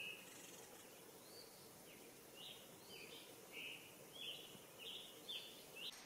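A songbird singing a faint series of short, clear whistled phrases over a light background hiss. The phrases come more often in the second half.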